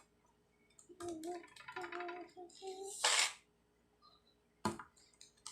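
A child's wordless vocal sounds for about two seconds, then a short breathy hiss and, near the end, a single sharp click.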